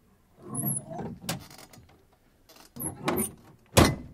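Truck door opened and closed: a run of clicks and rattles from the handle and latch, then the door slammed shut near the end, the loudest hit.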